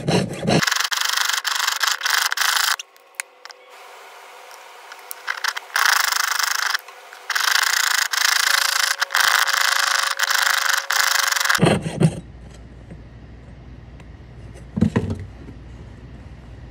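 A jeweller's saw cutting sterling silver sheet away from around a soldered bezel cup, the blade rasping against a wooden bench pin. It saws in three spells with short pauses and stops about twelve seconds in. A single short knock comes a few seconds later.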